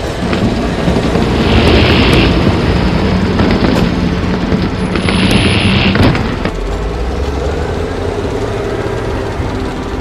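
Loud rumbling vehicle noise, heaviest for the first six and a half seconds and then easing to a steadier rumble, with two short hisses along the way.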